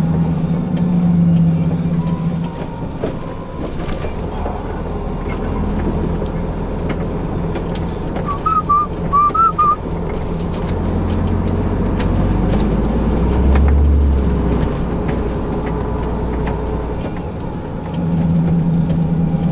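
Renault Magnum 440 lorry's diesel engine running steadily under way, heard from inside the cab, with the drone swelling about halfway through. A few short, high chirps sound just before that.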